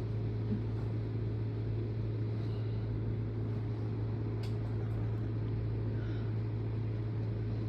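Steady low mechanical hum over a soft background hiss, with a faint tick about four and a half seconds in.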